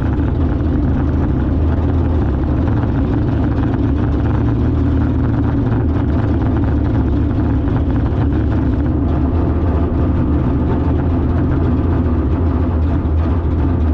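Car engine running steadily at an even, low speed, with no revving.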